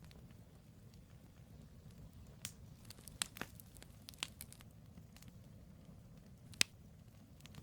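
Campfire of firewood logs burning: scattered sharp crackles and pops over a low steady rumble of the fire, a cluster of them a few seconds in and the loudest single pop near the end.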